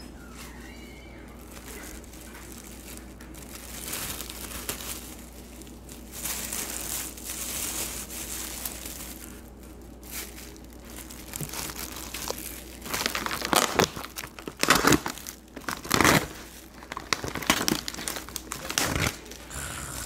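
Plastic takeout food packaging crinkling and tearing as it is unwrapped, followed by a run of sharp clacks and knocks in the second half, the loudest sounds.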